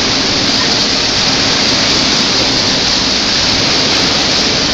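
Steady loud rush of churning, breaking water in a wave pool as the waves wash through the shallow end.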